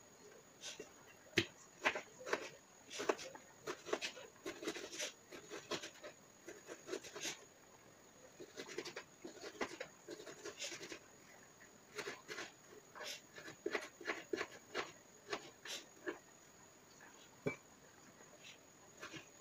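Kitchen knife slicing raw chicken breast on a wooden chopping board: irregular light taps and knocks of the blade on the board, with a few sharper knocks.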